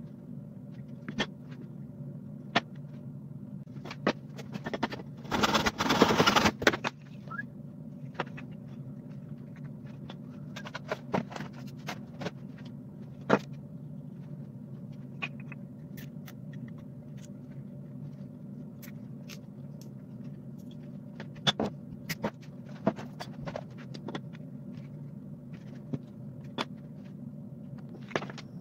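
Scattered clicks and taps of small metal parts and wires being handled as a capillary thermostat and fan are fitted and wired, over a steady low hum. About five seconds in, a harsh rustling, scraping noise lasting about a second and a half is the loudest sound.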